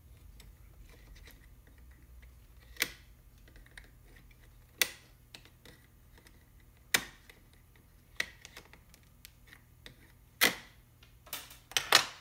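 Needle-nose pliers gripping and prying at a plastic push-on star washer keeper on a starter motor's shaft end: sharp clicks and snaps about every two seconds, with a quick run of several near the end as the keeper comes off.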